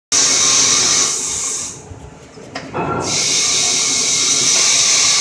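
Boring bar of a cylinder boring machine cutting an engine block's cylinder bore: a loud, steady, high-pitched hissing cut. It drops away for about a second near the middle, with a single click, then comes back.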